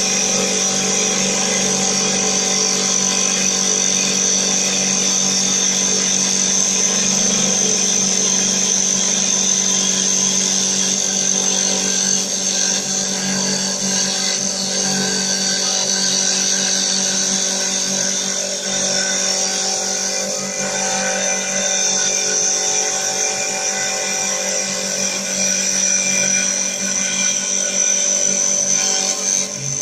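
Automatic CNC wood lathe running, a steady machine whine of several held tones over a rushing noise, a little more uneven in the second half.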